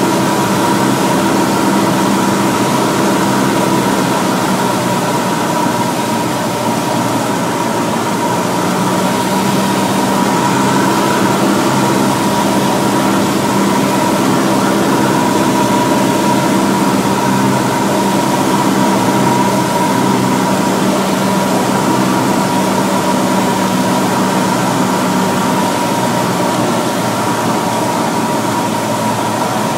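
Cessna 172's 180-horsepower upgraded engine and propeller droning steadily under a layer of airflow hiss, heard inside the cockpit on final approach. It eases a little near the end as the plane comes over the runway threshold.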